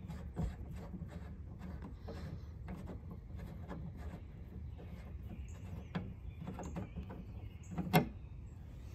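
Factory Ford F-150 antenna mast being unscrewed by hand from its base: faint, irregular clicks and scrapes from the threads and the mast, with one sharp click about eight seconds in.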